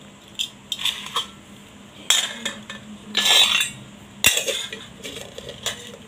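Stainless-steel cooking pots, lids and a steel tumbler clinking as they are handled, a string of sharp metallic clinks with a longer rattle about three seconds in. A steel lid is set back onto a pot near the end.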